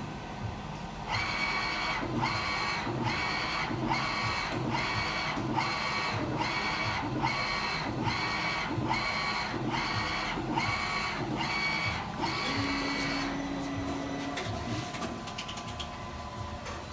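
Brother GT-361 direct-to-garment printer printing: the print head carriage shuttles back and forth, one whirring pass about every 0.8 s. About 13 s in the passes stop and a short steady motor hum follows as the printer finishes the job and the platen carrying the shirt feeds out.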